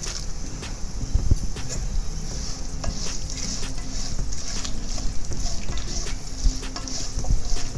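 Ghee sizzling in a nonstick pan as a tempering of urad dal, mustard seeds, cumin and split dal fries among cashews and chillies, while a slotted spatula stirs and scrapes through it with frequent short clicks.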